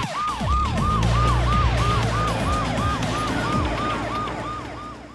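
Cartoon police car siren sounding a fast yelp, each wail rising and falling about three times a second, over a low rumble, fading away near the end.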